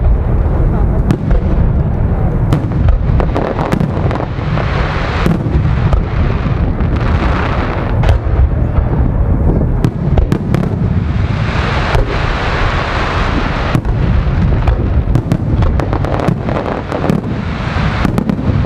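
Fireworks display: aerial shells bursting in a continuous run of low booms, with many sharp crackling pops throughout and stretches of denser hissing crackle.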